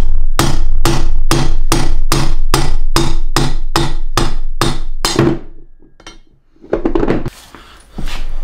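Hammer blows on a steel punch, knocking the bearing out of a Jeep NSG370 six-speed transmission's aluminium rear housing. The strikes come steadily at about three a second, each one ringing, and stop about five seconds in as the bearing comes free. A clatter and a knock follow near the end.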